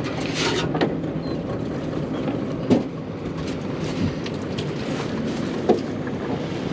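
Small boat's outboard motor running steadily at low speed, with a few short knocks and clatters on the hull.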